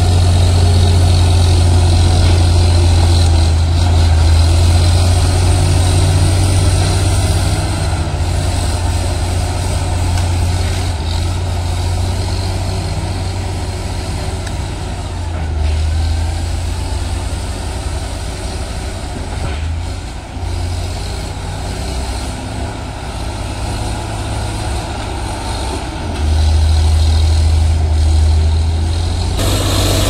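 Crawler bulldozer's diesel engine running hard as it pushes brush and soil, with a deep steady hum. The engine eases off through the middle and comes back up under load near the end.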